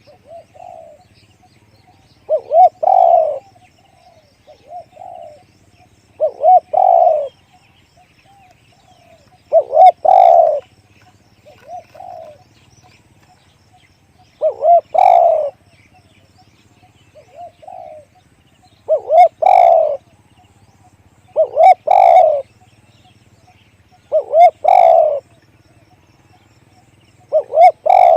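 Spotted dove cooing over and over: loud, deep coo phrases of a few notes each, repeating every two to three seconds, with a few softer short coos between them.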